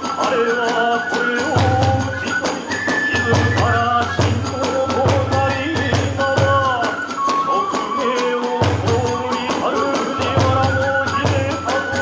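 Kagura hayashi ensemble playing fast hachōshi-style festival music: large and small taiko drums beating, tebyōshi hand cymbals clashing on every beat, and a bamboo flute carrying the melody.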